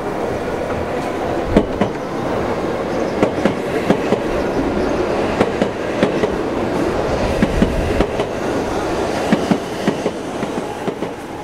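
Hokuriku Shinkansen train rolling past the platform at low speed. Its steady rumble is broken by sharp wheel clicks over rail joints, coming at uneven intervals.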